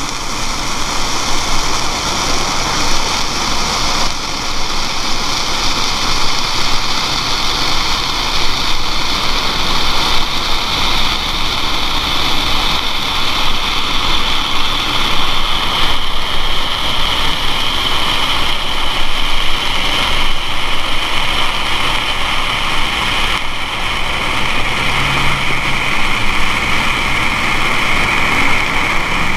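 Red stadium flare burning with a steady, loud hiss, its tone shifting slightly about halfway through. A faint low hum joins near the end.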